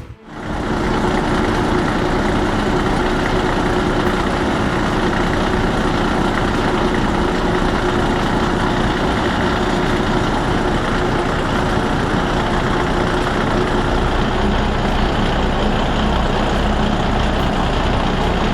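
Heavy diesel engine of logging equipment running steadily at a constant pace.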